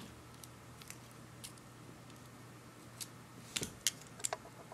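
Faint, scattered small clicks and ticks of hands handling a camera's plastic lens assembly and its image sensor circuit board, with a quick run of sharper clicks near the end as the board is worked loose. A faint steady hum lies underneath.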